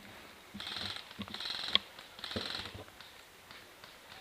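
Airsoft electric guns firing three short full-auto bursts, each a fast mechanical rattle, with a couple of sharp cracks among them.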